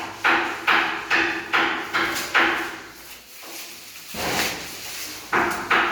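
A hand tool worked in quick back-and-forth scraping strokes during tap-fitting plumbing work: about six strokes at an even pace of roughly two and a half a second, then a pause and two or three more near the end.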